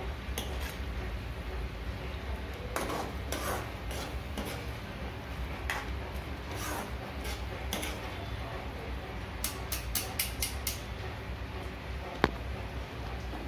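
Steel kitchen utensils clinking: a ladle and tongs knocking against a steel kadhai and plate while fried fish pieces are handled, in scattered clicks with a quick run of them about ten seconds in and one sharp click near the end, over a steady low hum.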